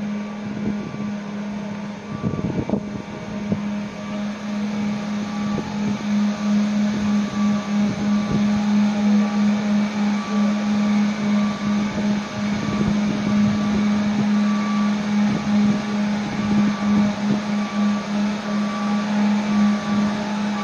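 Ōsumi-class transport ship's vehicle elevator running: a steady low machinery hum with a short warning beep repeating about once a second, and a few scattered knocks.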